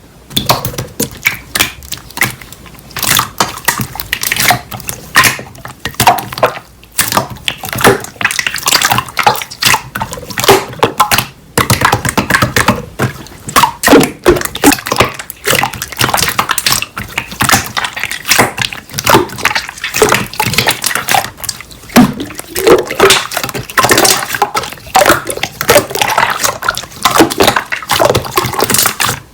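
Slime being squished, stretched and pressed by hands, giving dense, irregular wet clicks and pops.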